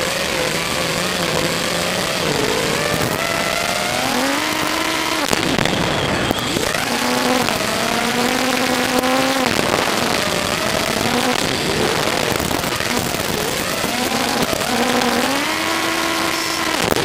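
5-inch FPV quadcopter's 2205 2300kv brushless motors and three-blade props in flight: a whine that glides up and down in pitch as the throttle changes, over a steady rushing hiss.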